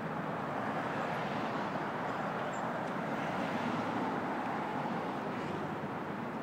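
Steady city street traffic noise: the engines and tyres of cars driving through an intersection, an even hum with no siren.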